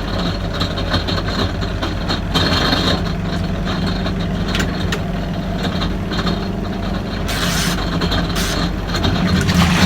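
A machine running steadily with a low, even hum.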